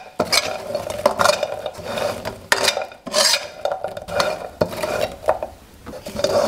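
A spatula scrapes around a nonstick wok while fried dough twists are tossed through sticky caramelised sugar syrup to coat them. It is a run of uneven scrapes and rustles, with a short lull near the end.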